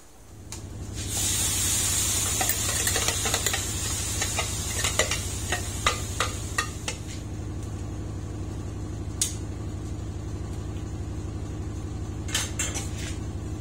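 Blended chili paste for sambal tipped into a hot wok and sizzling, the hiss swelling about a second in, with a spoon scraping and tapping the paste out of a plastic container against the wok in a run of sharp clicks. A steady low hum runs underneath.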